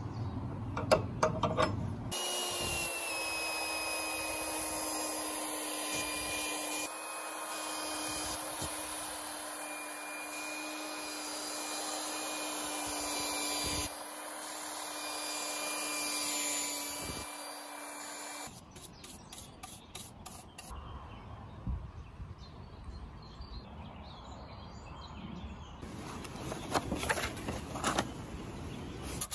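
Handheld electric drum sander running steadily as its abrasive roller strips weathered paint off a wooden plank: a constant motor hum over a gritty rasp, cutting off suddenly about two-thirds of the way through. A few sharp knocks come just before it starts.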